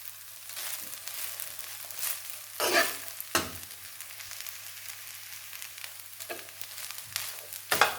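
Rice frying in a pot with a steady sizzle, and a spoon stirring through it, scraping against the pot a few times.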